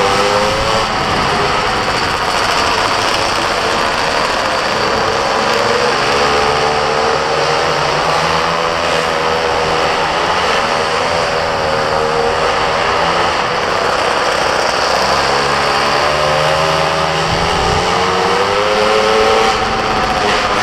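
Small minimoto engine racing, heard onboard: it revs up and eases off again and again, the pitch rising and falling every few seconds, with a steady hiss over it.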